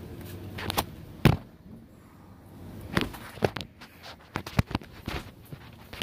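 Handling noise: a string of sharp clicks and knocks, the loudest a little over a second in, from hands working multimeter probes into the wiring plug at a golf cart's pedal box.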